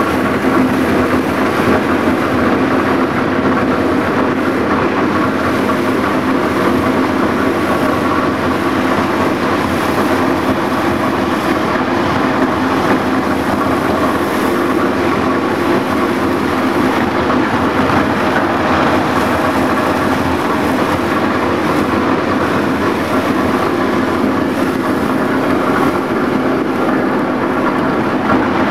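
Plastic agglomerator (densifier) running under load, its rotor blades churning shredded plastic film in the drum. A loud, steady mechanical noise with a constant hum in it.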